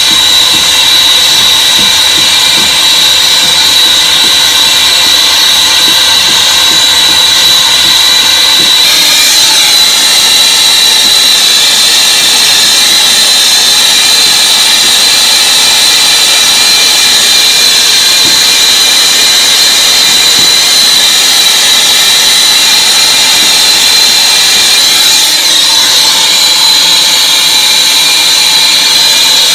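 Propane torch burning with a steady loud roar and a high whistling tone, heating a stainless pot of lye and cat-litter solution as it is cooked down into water glass.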